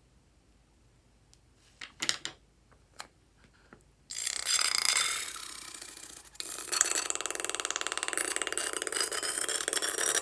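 A few small clicks, then air squeezed out through a stretched balloon neck in a flapping, rubbery buzz, in two long spells with a short break between them.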